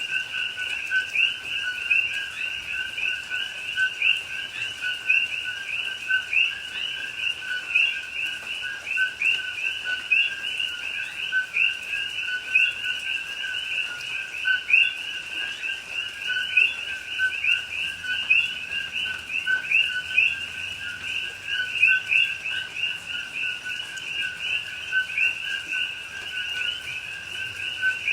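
Chorus of many common coqui frogs calling at once. Their two-note "co-kee" calls, a lower note followed by a higher rising one, overlap continuously.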